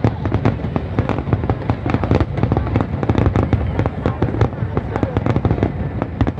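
Fireworks display: a rapid barrage of aerial shells bursting, several bangs a second over a continuous low rumble.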